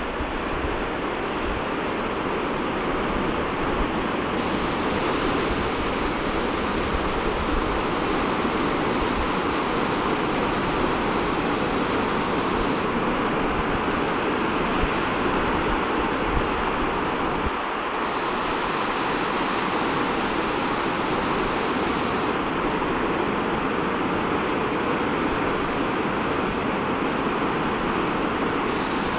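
Ocean surf breaking over rocks below the sea cliffs: a steady, even rushing wash with no single wave standing out.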